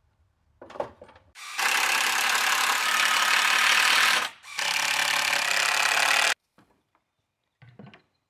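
A motor-driven tool running loudly in two runs, the first about three seconds and the second just under two, each stopping abruptly.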